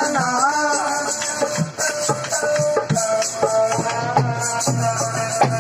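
A folk fiddle played by a train busker: most likely a ravanahatha, a bamboo-necked bowed fiddle. Its bowed melody glides and holds long notes, and a rattling of bells runs through it in rhythm.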